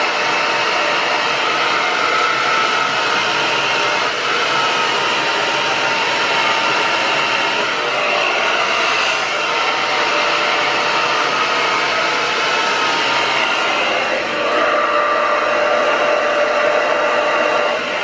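Black Diamond professional hair dryer running steadily, blowing air down onto the hair while it is brushed. It makes a constant rushing hum with a faint high whine, which shifts in pitch about fourteen seconds in.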